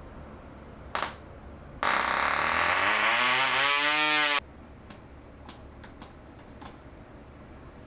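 Cox Medallion .049 two-stroke glow engine being hand-flipped: one sharp pop, then it catches and runs at a high-pitched scream for about two and a half seconds, rising in speed, before cutting out abruptly. Afterwards a few light clicks as the propeller is flicked again.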